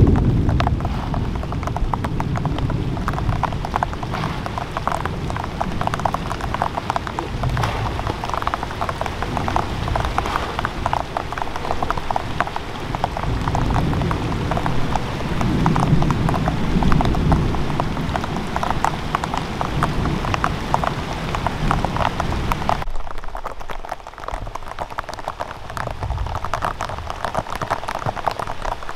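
Steady patter of rain falling on a pond's surface and the surrounding leaves, a dense crackle of drops, with low sloshing swells as someone wades through the muddy water.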